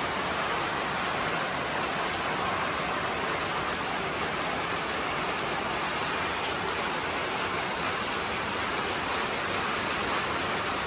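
Steady rain falling on roofs and a tiled porch: an even hiss with faint scattered drop ticks.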